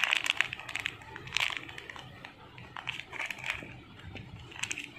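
Plastic and paper jewellery wrapping rustling and crinkling as hands handle it in a cardboard box, with small clicks. Densest at the start, then in short bursts about a second and a half, three and a half, and just under five seconds in.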